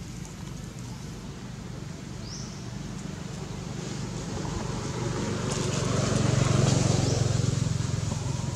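A motor vehicle's engine running with a steady low hum, growing louder from about five seconds in and loudest near the end.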